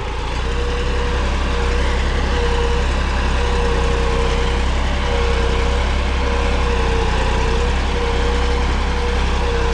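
Massey Ferguson 9500 tractor's diesel engine running steadily under load while pulling a three-bottom mouldboard plough at full depth through the soil, a deep even drone with a steady whine over it.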